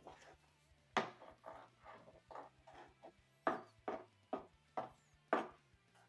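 Knife cutting raw chicken breast on a cutting board: a string of sharp, irregularly spaced knocks as the blade strikes through to the board, with softer slicing sounds between them.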